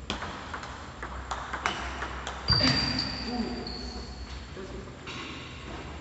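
Table tennis rally: a celluloid-type plastic ball clicking off paddles and table in quick succession. About halfway through, a louder sudden sound comes with a high held squeak and a brief voice as the point ends.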